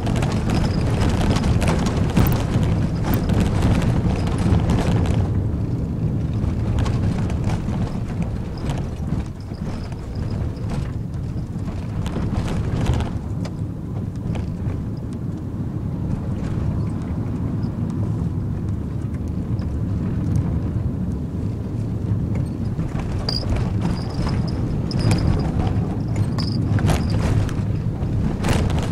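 Cabin noise of a Nissan NV200 van driving on a narrow mountain road: a steady rumble of engine and tyres, with clusters of short knocks and rattles over the first few seconds and again near the end, and a few brief high squeaks near the end.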